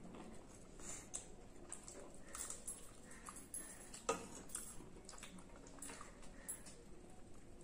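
Quiet eating sounds: chewing and mouth noises with scattered light clicks of a metal spoon and fingers against ceramic plates, the sharpest click about four seconds in.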